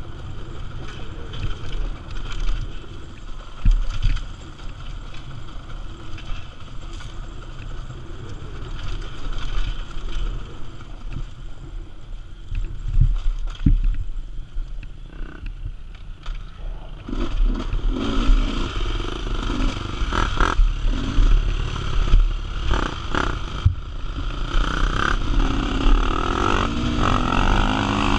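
Two-stroke 300 cc engine of a GasGas EC300R enduro motorcycle running on a dirt trail, its note rising and falling with the throttle, more clearly in the second half. Wind rumble on the helmet-mounted microphone.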